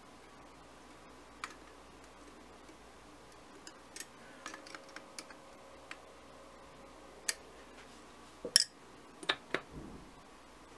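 Small scattered clicks and light taps of fingers and metal parts on a motorcycle carburetor body as a jet is fitted by hand, with the sharpest few clicks close together near the end.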